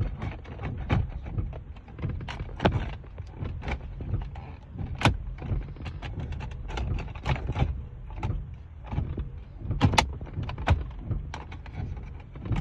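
Irregular clicks, knocks and rattles of an aftermarket radio's wiring and plastic dash parts being pushed and handled into the dash opening.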